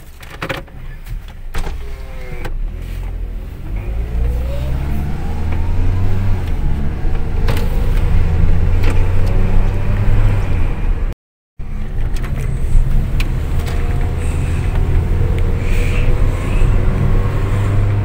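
Car heard from inside the cabin while driving: a few clicks near the start, then the engine note rising as the car gathers speed and settling into a steady drone of engine and road noise. The sound drops out briefly about eleven seconds in.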